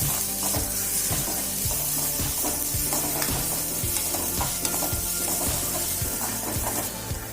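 Onions and freshly added garlic sizzling in hot oil in a pan, with a spoon stirring and scraping the pan about two to three times a second.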